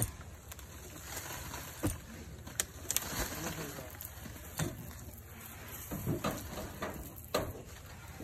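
Water jet from a hose wand spraying into a termite mound and washing out wet earth, a steady hiss, with several sharp knocks scattered through it.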